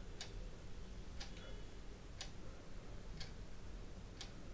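A clock ticking faintly and evenly, one tick a second, over a low room hum.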